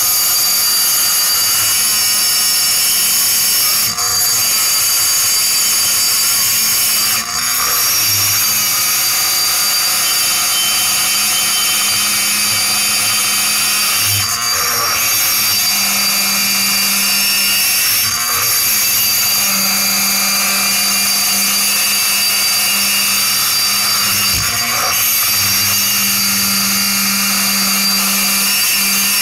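Handheld high-speed rotary tool (pencil grinder) cutting inside a port of a chainsaw cylinder, a loud steady whine whose pitch shifts with the load. The cut eases off briefly a few times as the bit is repositioned.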